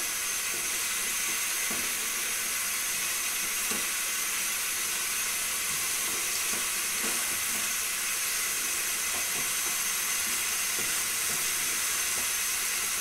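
Boiled moong dal sizzling steadily in ghee in a wok, with faint scraping strokes from a wooden spoon stirring it. It is being fried down (bhuna) until the ghee separates.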